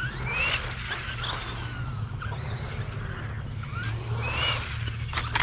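Radio-controlled car's motor whining as it is driven. The pitch climbs as it speeds up and sinks as it eases off, with a sharp rise near the start and another about four seconds in.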